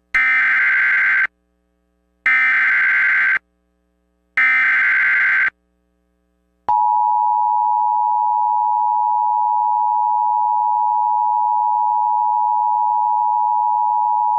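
Emergency Alert System tones announcing an Amber Alert: three bursts of SAME header data, each about a second long and evenly spaced. After a short pause comes the steady two-tone EAS attention signal, held for about eight seconds.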